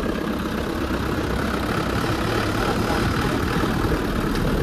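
An old truck's engine running steadily, with road noise, heard from on top of the truck.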